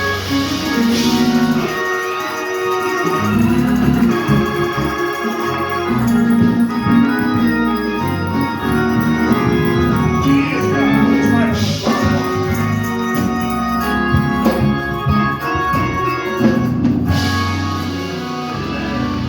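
Organ music: an organ playing sustained chords over a bass line, the chords changing every second or two.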